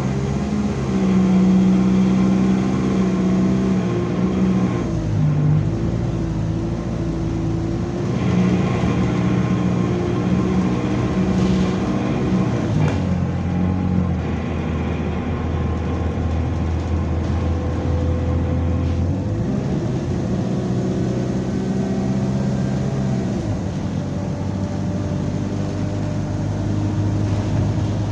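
Diesel bus engine heard from inside the passenger saloon, pulling along under load, its note changing pitch several times as the bus speeds up and eases off. It has a moany engine note and a burst turbo.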